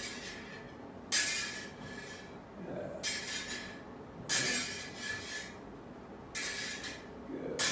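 Steel smallsword blades meeting and sliding along each other with a short metallic ring. The contacts come in pairs about a second apart, three pairs in all, as the blades are engaged and a straight thrust is made along them.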